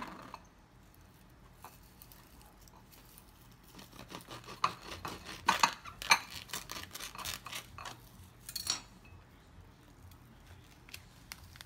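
A knife cutting around the hard shell of a sweet granadilla (Passiflora ligularis), with faint scraping, crackling and several sharp clicks of the blade against the rind and a ceramic plate. The clicks and scrapes bunch in the middle seconds.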